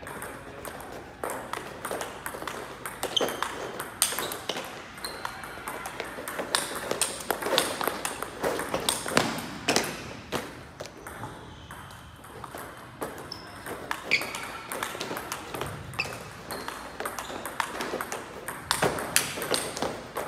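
Table tennis ball being hit back and forth in a rally: sharp clicks off the paddles alternating with bounces on the table, many in quick succession, with a brief lull near the middle.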